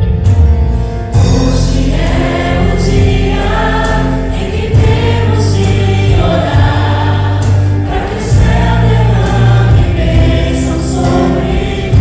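Choir singing a gospel worship song over instrumental accompaniment with a steady bass line; the full ensemble enters right at the start after a soft keyboard passage.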